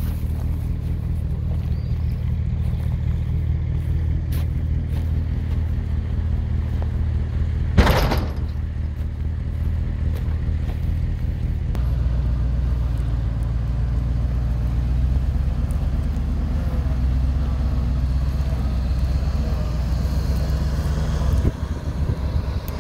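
Dodge C600 grain truck's engine idling steadily, with a single loud knock about eight seconds in. Its low hum grows deeper and stronger about twelve seconds in.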